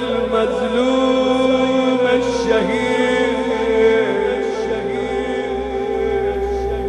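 Background music: a solo voice chanting in long held notes that slide slowly between pitches.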